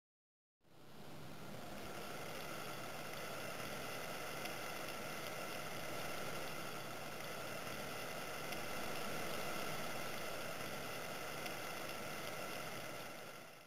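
Water boiling in a stainless steamer pot under an artichoke: a steady bubbling hiss that starts abruptly about half a second in and cuts off at the end.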